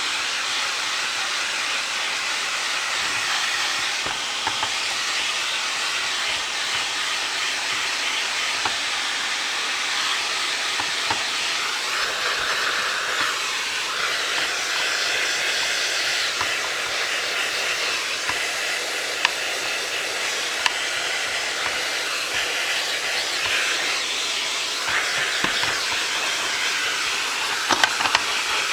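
A vacuum cleaner running steadily with a loud, even hiss while it cleans dust out of an open robot vacuum's chassis, with a few light clicks of the nozzle against plastic.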